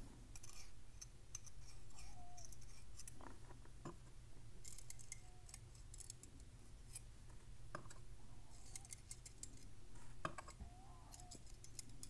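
Faint, scattered light metallic clicks of steel tweezers working in the Abus Rock padlock's cylinder housing as the tiny pin springs are set back into their chambers.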